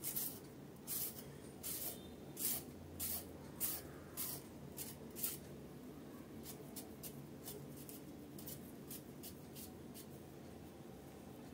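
Vegetable peeler scraping down a raw carrot, one stroke after another as peel strips come off. The strokes are sharpest over the first five seconds, then come lighter and quicker.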